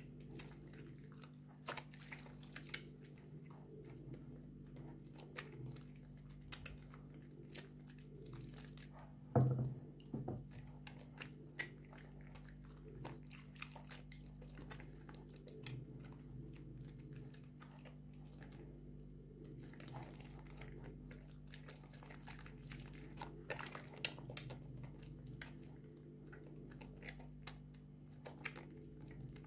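Bars of soap being rubbed and squeezed between wet hands in a basin of soapy water: a run of small wet squelching and crackling clicks from the lather. A louder knock comes about nine seconds in.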